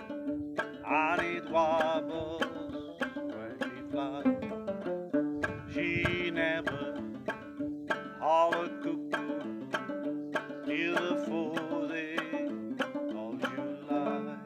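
Low-tuned gourd banjo picked in a steady rhythm, with a voice singing a wavering melody over it.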